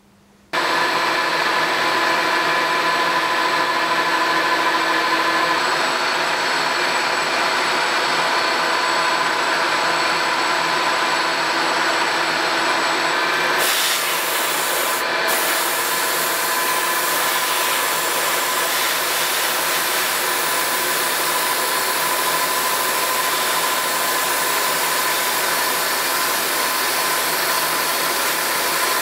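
Milling machine running, its small cutter routing a lengthwise slot in a hardwood sword-handle block: a steady motor hum with a constant cutting hiss. The sound starts suddenly just after the start and turns hissier about halfway through.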